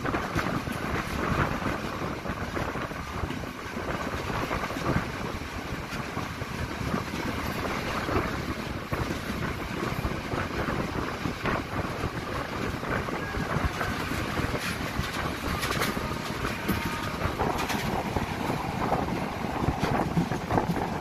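Passenger train running along the track: steady rumble with irregular clatter of wheels on rails, and wind buffeting the microphone.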